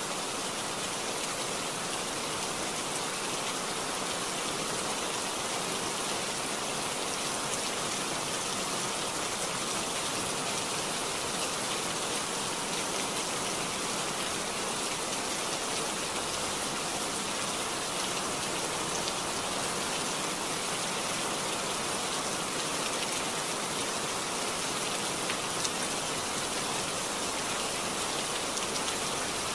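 Heavy rain falling, a steady, even hiss that does not let up.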